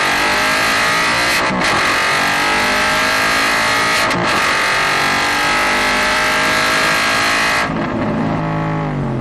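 Aston Martin GT4's V8 engine heard from inside the cockpit under hard acceleration, its note climbing, with two quick upshifts that briefly cut the sound. Near the end the driver lifts off and the engine note falls as the car slows for a corner.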